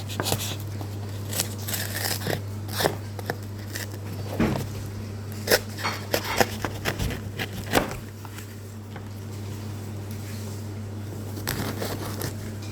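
Hands struggling to open a mine-sample container: irregular clicks, scrapes and crackles for about eight seconds, then quieter handling. A steady low hum runs underneath.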